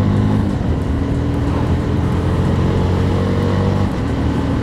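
MUTT Razorback 250 motorcycle engine pulling hard under throttle, its pitch climbing steadily, then falling with a brief dip in level about four seconds in as the rider shifts up a gear.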